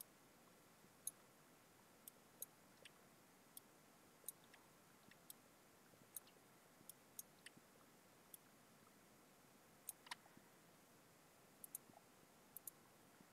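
Computer mouse clicking, about twenty short clicks at irregular intervals, faint over near-silent room tone.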